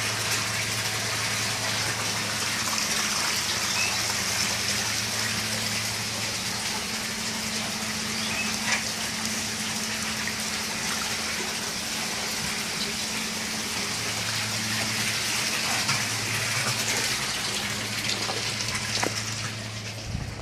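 Water pouring steadily from a PVC return pipe into an aquaponics fish tank, splashing onto the water surface, over a steady low electric hum from the system's water pump. The hum fades out for a while midway, and the water sound drops away near the end.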